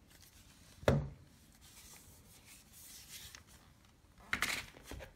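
Handling noise from a plastic-bodied butane torch lighter being turned over in the hands: a sharp knock about a second in, then soft rubbing, and a louder rubbing scrape near the end.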